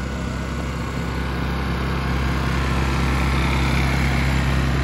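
Small portable gasoline generator running with a steady engine hum that grows a little louder about two seconds in.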